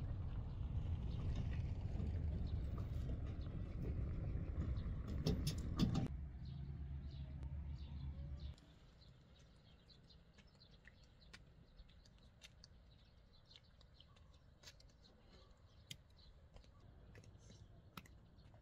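Outdoor ambience: a low rumble for the first eight seconds or so, with a few sharp rattling clicks partway through, then it drops to quiet, with faint bird chirps and scattered small ticks.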